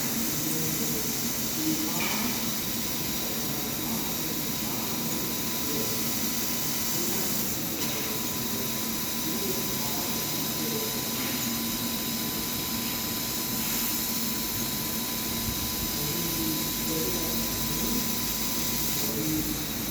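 100-watt CNC laser cutter running a job on a PVC pipe held in its rotary attachment: a steady hiss of fans and air, with a thin steady whine joining about eight seconds in and stopping near the end.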